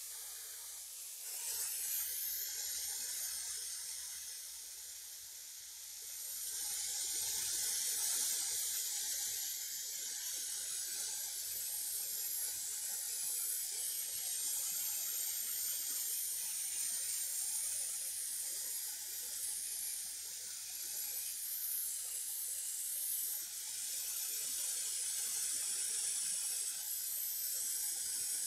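Hot air rework station blowing a steady hiss of air over the chip to reflow its freshly placed solder balls, growing louder about six seconds in.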